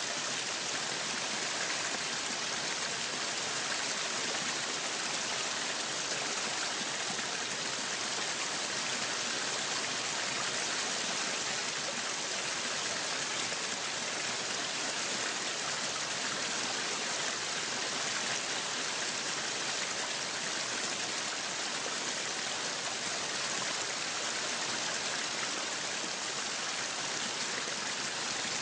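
Waterfall: a steady, unchanging rush of falling water, mostly high hiss.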